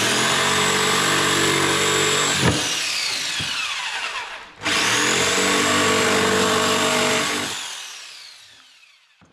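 Jigsaw cutting notches into the corners of a plywood piece. It runs in two goes of about two and a half seconds each, and after each one the motor's whine falls in pitch as it winds down.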